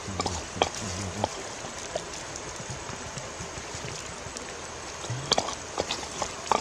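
Stone pestle pounding sauce in a mortar: a run of knocks in the first second or so, a pause, then knocks again near the end, over a steady hiss.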